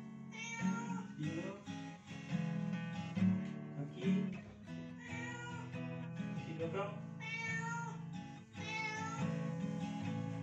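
Acoustic guitar background music, with a domestic cat meowing repeatedly over it, about half a dozen rising-and-falling calls, as the cat is being shampooed and washed.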